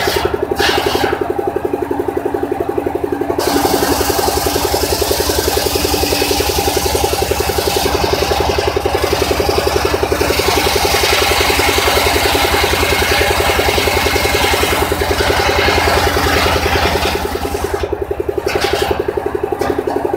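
Engine-driven circular saw ripping a wooden plank lengthwise: the engine runs steadily with an even pulsing beat, and the high hiss of the blade cutting wood comes in about three seconds in and drops away near the end as the cut finishes.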